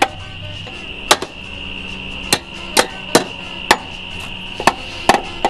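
A hand tool striking parts in an old Datsun's engine bay: about eight sharp, separate knocks at an uneven pace, a few of them close together.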